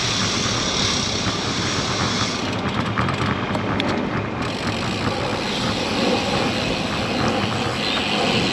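Steady wind rush and road noise while riding a road bicycle, the high hiss dropping away for about two seconds a few seconds in.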